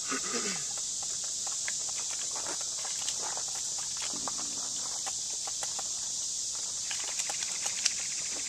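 Footsteps and small scattered clicks over a steady high-pitched outdoor hiss, with faint voices briefly near the start and about four seconds in.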